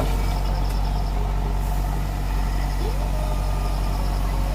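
JCB backhoe loader's diesel engine running steadily under work.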